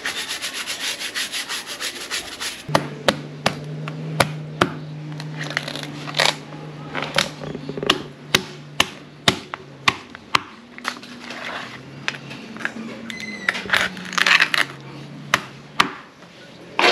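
A stiff brush scrubbing a slipper lobster's shell in quick, dense strokes. After about two and a half seconds it gives way to a knife cracking through the shell and knocking on a plastic cutting board, sharp knocks about two a second with short pauses, over a steady low hum.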